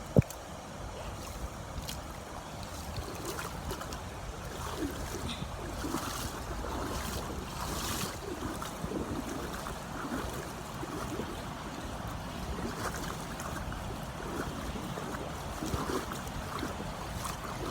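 River water rushing over rocks at a waterfall, a steady wash of noise, with wind buffeting the microphone. A single sharp knock right at the start.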